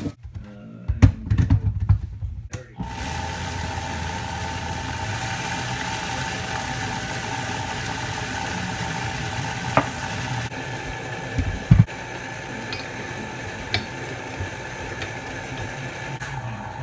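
Countertop blender running steadily, grinding dry contents, after a few clunks as its jar is set on the base. The motor sound drops a little about ten seconds in, with a couple of knocks.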